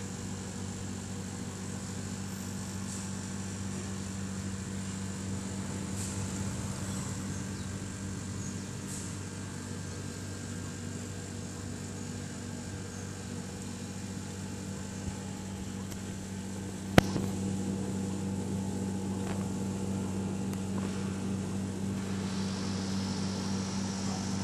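Steady low hum of a running machine, with a single sharp click about seventeen seconds in; the hum is a little louder after the click.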